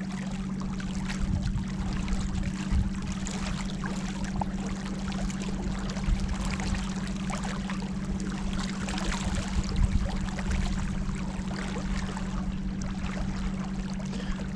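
Water splashing and lapping against a small boat on the river, irregular small splashes throughout, over a steady low hum.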